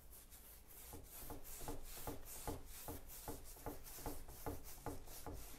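Paintbrush bristles swishing back and forth over a wooden bed headboard as chalk paint is brushed on: faint, even strokes, about four or five a second.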